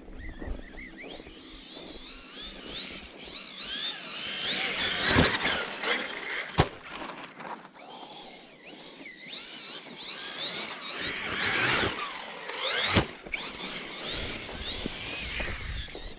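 Brushless electric motor of a 6S 1/10-scale RC truck whining, its pitch rising and falling quickly as the throttle is worked. Three sharp knocks are heard, about five, six and a half and thirteen seconds in.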